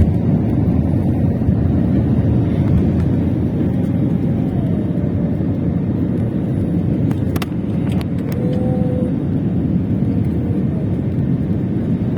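Steady, loud low rumble of an airplane taking off, with a couple of faint clicks about halfway through.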